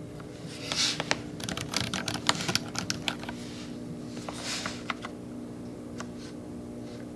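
Typing on a Vissles V84 mechanical keyboard: a quick run of keystrokes a little over a second in, then scattered single key presses.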